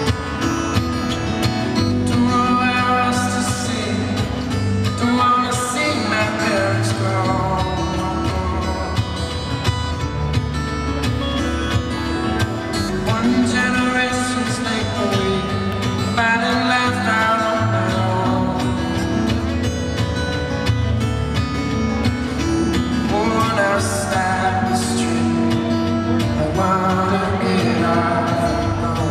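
Live solo acoustic guitar, fingerpicked, played through a concert sound system, with a male voice singing near the end.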